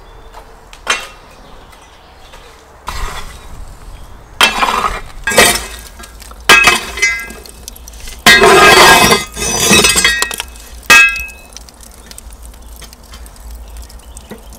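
A long-handled poker raking and scraping burning coals across the floor of a wood-fired brick oven, the embers and metal clinking. It comes in several bursts, the longest about 8 to 10 seconds in.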